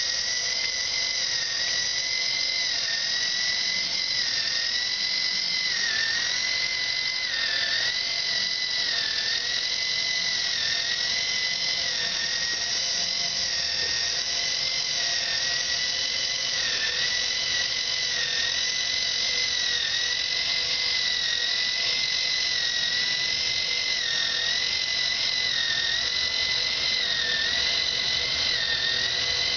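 K'nex Turbo Motobot's small electric toy motor and plastic gearbox whining steadily as the tracked robot drives. The high whine wavers, dipping in pitch every second or so.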